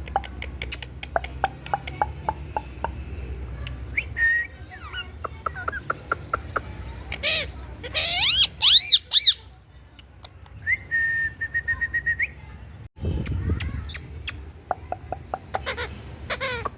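Indian ringneck parrot calling: runs of sharp rapid clicks throughout, loud screeching calls that rise and fall in pitch around the middle, and a held steady whistle a few seconds later.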